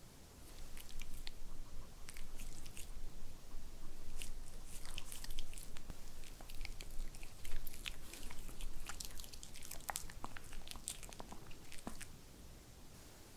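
White Pomeranian biting and chewing a dog-safe strawberry cake pop: a close run of small, sharp clicks and crunches of teeth on the treat that stops near the end.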